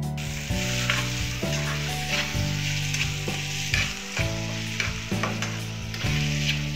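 Metal spatula stirring onions frying in a pan: a steady sizzle with repeated sharp scrapes of the spatula against the pan, about one every half second. Background music with held low notes plays underneath.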